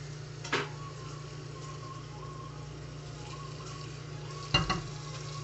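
Tap water running steadily into an aluminium pressure-cooker pot onto freshly boiled potatoes, cooling them for peeling. A short knock about half a second in and a louder clunk about four and a half seconds in.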